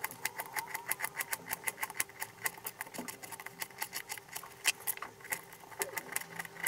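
Kitchen knife slicing raw peeled potato into thin slices on a plastic cutting board: a quick, even series of knife taps against the board, about five a second.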